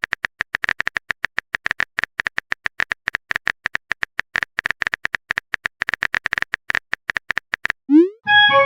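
Rapid, irregular clicks of a phone keyboard typing sound effect, about ten a second, each with a short high tone. They stop near the end, followed by a quick rising swoop and a short chime, like a message being sent and a notification tone.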